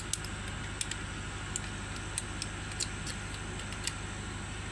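Irregular sharp metal clicks of a ring spanner working a rocker-arm valve-clearance adjusting screw and lock nut on a Kubota M9000 diesel cylinder head. Under them runs a steady low hum.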